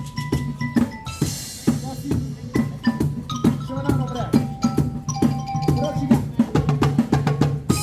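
Percussion jam on found-object drums, with a fast, steady beat of low drum hits, ringing pitched strikes and a cymbal-like splash about a second in.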